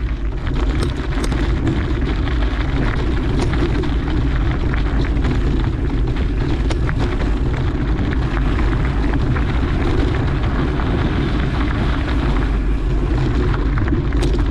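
Steady wind rush and low rumble on the microphone while riding a mountain bike on a dirt trail, with scattered clicks and rattles from the bike.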